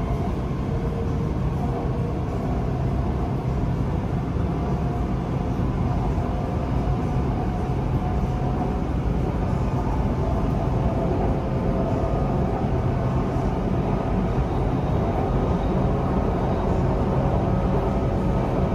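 Inside a BTS Skytrain electric metro car running along the elevated track: a steady low rumble of wheels on rail, with a thin whine from the motors over it.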